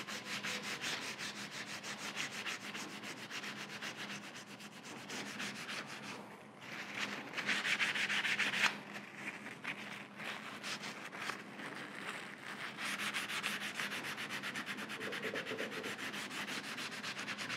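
A cloth shop rag rubbed briskly back and forth over the greasy metal of a Wilton bullet bench vise, wiping off old grease. It makes a rapid, even scrubbing of many quick strokes, which pauses briefly about six seconds in and turns louder for a couple of seconds after that.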